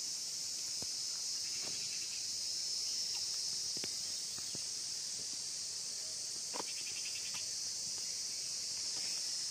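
A steady, high-pitched insect chorus, with a few faint clicks and a short pulsing trill about seven seconds in.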